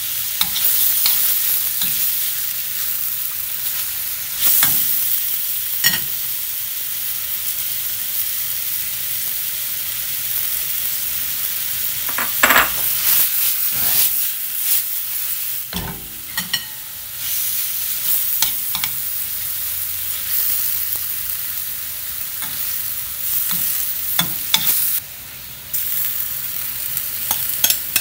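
Sliced beef and onions sizzling in a hot stainless-steel skillet as they are stirred and tossed with metal tongs: a steady high sizzle, with a few sharp clicks and scrapes of the tongs against the pan.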